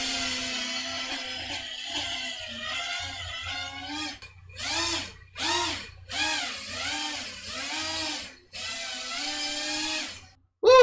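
FPV quadcopter's brushless motors spinning in a test hover: a steady whine for the first few seconds, then a run of throttle blips with the pitch rising and falling about every half second, before the motors stop near the end. The quad is flying a freshly set-up RPM-filtered tune, which to the pilot sounds nice.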